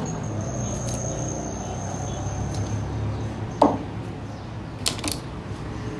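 Chicken being cut up with a knife on a cutting board: a single sharp knock a little past halfway, then two quick clicks, over a steady low hum.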